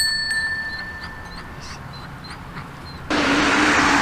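A sheep's bell rings and fades out at the start, leaving a quieter stretch. About three seconds in, a loud, steady rushing noise with a low hum starts suddenly.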